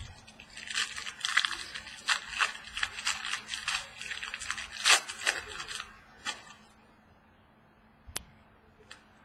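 Plastic wrapping being torn and crinkled for a few seconds as a box of trading cards is opened, then quiet with a sharp click near the end.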